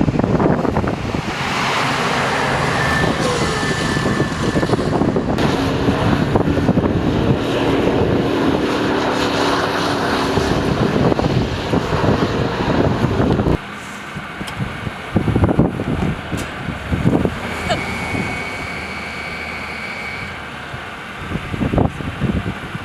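Strong wind blowing across the microphone, mixed with a motor vehicle's engine and tyres on a snowy road. The loud sound cuts off abruptly just past halfway, giving way to quieter wind with a few scattered knocks.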